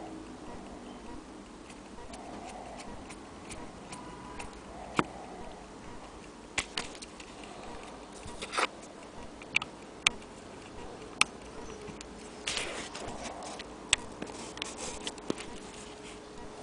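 Irregular sharp metallic clicks and taps as an old Gluck Engineering 24-hour clock movement is handled and turned by hand, about a dozen clicks spread unevenly, most of them in the second half.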